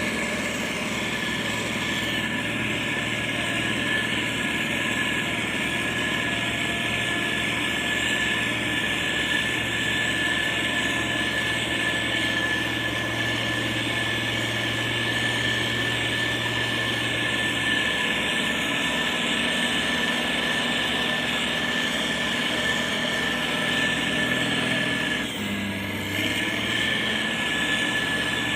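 Diesel engines of heavy road-construction machines running steadily, with a low hum and a thin high whine, and a brief dip in the sound about 25 seconds in.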